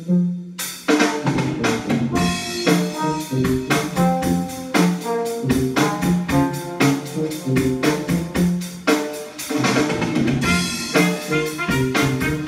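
Jazz music played through hi-fi loudspeakers: a drum kit keeps a steady beat under sustained instrumental notes.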